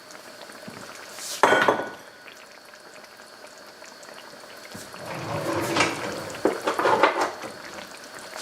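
Kitchen dishes and utensils clattering: one sharp clank about one and a half seconds in, then a few seconds of clinking and rattling from about five seconds on. Under it, a pan of sauce simmers faintly.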